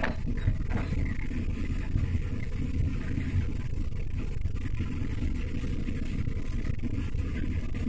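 Steady low rumble of tyres and engine heard from inside a car cruising on a highway.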